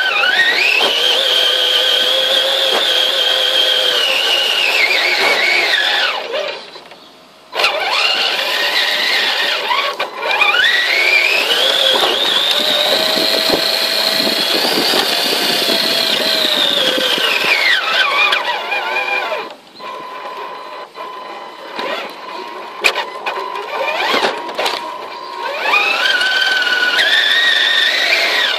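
Electric drive of a custom Tamiya TXT-1 radio-controlled monster truck whining: the motor and gears rise in pitch as it speeds up, hold high, then fall as it slows, several times over, with a short cut-out about seven seconds in and a lower, quieter stretch in the last third.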